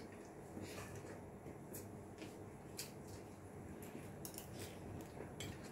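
Faint, irregular small clicks and taps of eating at the table: utensils and fingers working food on plates and bowls.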